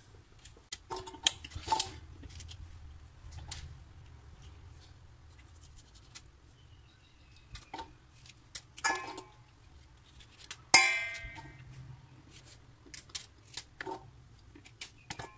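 Kitchen knife cutting okra pods over a stainless steel bowl: irregular light clicks and taps as the blade cuts and pieces drop into the bowl. A few of the hits make the steel bowl ring, the loudest a clink about two-thirds of the way through.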